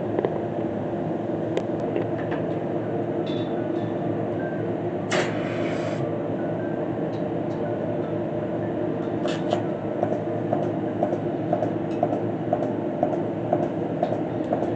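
Steady hum of a dairy milking system's vacuum pump and milker, with two short hisses of air, about five seconds in and again about nine seconds in. From about ten seconds a light regular ticking comes in, about twice a second.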